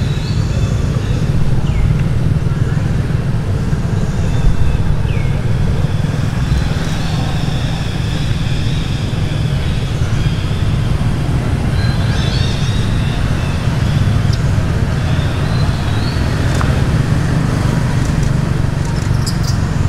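A steady low outdoor rumble, with short high-pitched chirps and squeaks now and then and a few sharp ticks near the end.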